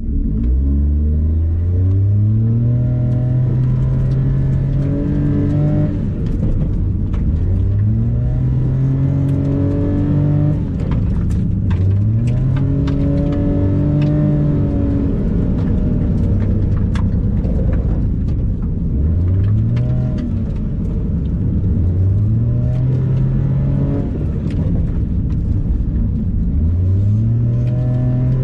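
Naturally aspirated Suzuki Alto Lapin's 660 cc three-cylinder engine heard from inside the cabin, revving up hard in short bursts and dropping back again and again as the car accelerates between turns and slows for the next one. A few sharp clicks and knocks come through now and then.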